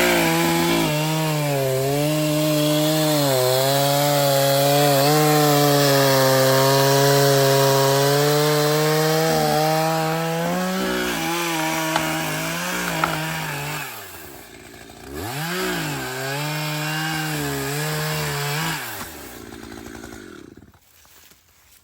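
Two-stroke chainsaw running at high revs, cutting slowly through a log under tension, its pitch wavering as the chain bites. About two-thirds of the way in the revs drop and climb back up, and near the end the saw falls to a lower idle and stops.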